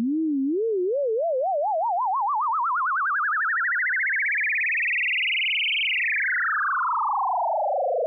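Sylenth1 synthesizer sine-wave sweep effect: a single pure tone glides upward with a vibrato wobble that gets faster as it climbs, peaks about six seconds in, then slides steadily back down. The glide comes from an envelope on the pitch, and the speeding wobble from an LFO on the pitch whose rate a second envelope pushes up.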